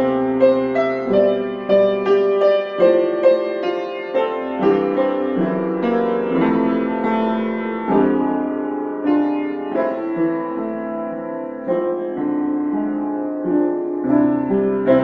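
Solo piano-style keyboard playing a slow instrumental piece: a melody over chords, the notes coming quickly at first and giving way to longer held chords in the middle.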